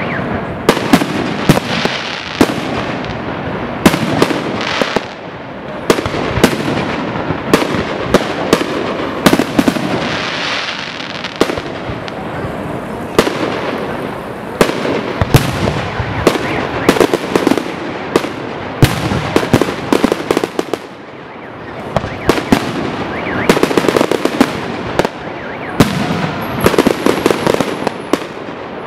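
Aerial fireworks display: shells bursting in a rapid, irregular series of loud bangs, several a second at times, over a steady crackle.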